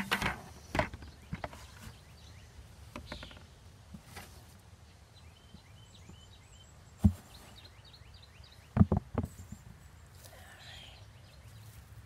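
A few sharp knocks and thumps as potatoes and dried potato plants are handled in a hand harvest, with one clear knock about seven seconds in and a quick cluster about two seconds later. Birds chirp faintly in the background.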